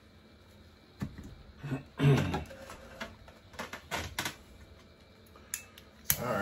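A string of sharp clicks and knocks as a small handheld torch is picked up and handled over the table. The loudest knock comes about two seconds in, with a last click near the end.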